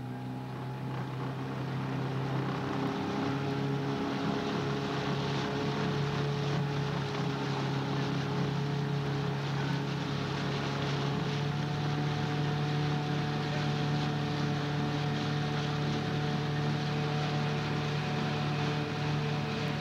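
Coaching launch's motor running at a steady pitch, getting a little louder over the first two seconds and then holding even, with wind noise on the microphone.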